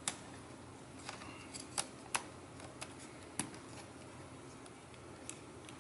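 Irregular small, sharp clicks and taps of fingers working inside an opened HP laptop, detaching the Wi-Fi card's snap-on antenna cable connectors. Most of the clicks fall in the first three and a half seconds, with one more near the end.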